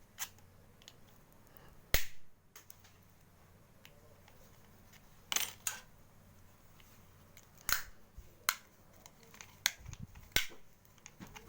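Sharp plastic snaps and clicks as the top cover of a sealed dry battery is pried off, about eight separate cracks spread irregularly, the loudest about two seconds in.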